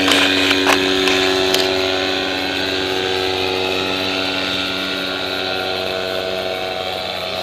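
Paramotor engine and propeller droning steadily at an even pitch. A few short clicks come in the first two seconds.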